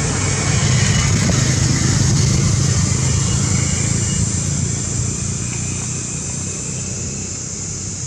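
Steady motor-vehicle engine noise, louder over the first couple of seconds and then slowly fading.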